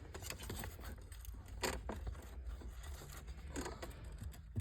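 Faint scraping and a few sharp clicks as a stiff wire and a claw pick-up tool are worked down behind the dash panels to fish a cable through.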